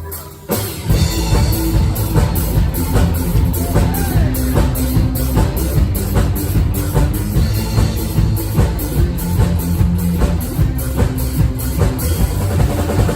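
Live band playing a rock-style song, driven by a drum kit with a steady beat. The band stops for a moment just after the start, then the full band comes straight back in.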